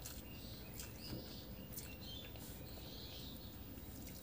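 A person eating rice and curry by hand: chewing a mouthful with soft wet clicks and smacks, then fingers mixing rice on the plate, over a steady background hiss.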